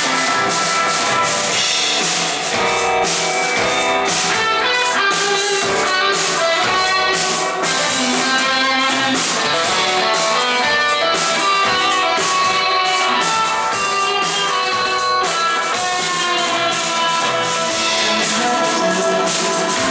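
Psychedelic rock band playing an instrumental passage live: strummed and picked electric guitars over a drum kit, with no singing.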